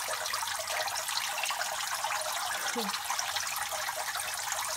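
Water from a turtle tank filter's spray bar pouring and splashing steadily into the tank water.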